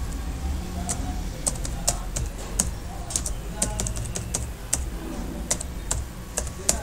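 Computer keyboard being typed on, the keys clicking unevenly at about two or three strokes a second over a steady low hum.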